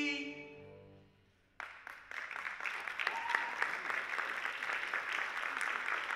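The final held chord of a musical-theatre song fades out over about a second and a half. Then audience applause breaks out suddenly and carries on steadily.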